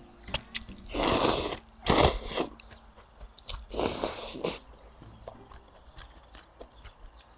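Spicy ramyun noodles slurped from a bowl in three loud slurps, with chewing sounds and small clicks between them.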